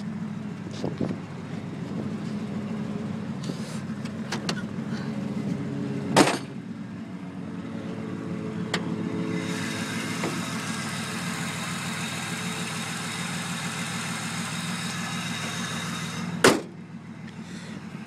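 1994 Pontiac Firebird's 3.4-litre V6 idling steadily. A sharp thump comes about six seconds in; from about nine seconds a brighter rushing hiss joins the idle, cut off by a loud slam near the end, after which the engine sounds more muffled.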